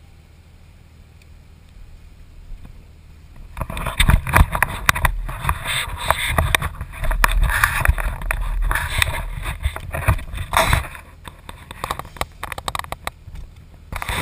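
Straight-piped Dodge Ram 2500's Cummins turbodiesel idling as a faint low hum. About four seconds in, loud irregular rustling, scraping and knocking of the camera being handled against fabric takes over.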